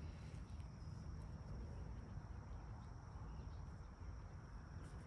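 Faint outdoor ambience: a steady high-pitched insect drone over a low rumble.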